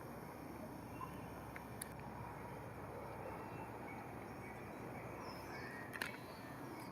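Steady, fairly quiet outdoor background noise, with a faint high chirp about five seconds in and a couple of light clicks, one about two seconds in and one near the end.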